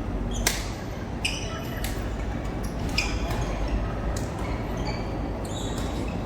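Badminton rally in a hall: sharp racket strikes on a feather shuttlecock, the loudest about half a second in and at three seconds, with short high squeaks of court shoes on the floor between them over a steady low room rumble.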